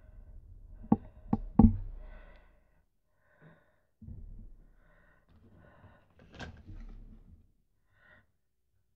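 Handling noises: three quick, sharp taps about a second in, then fainter rustles and scrapes, with one sharper knock a little past the middle.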